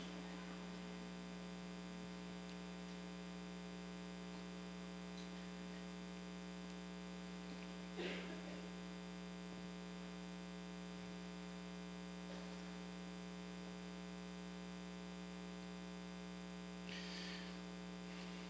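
Steady electrical mains hum in the sound system, with two faint brief sounds about eight and seventeen seconds in.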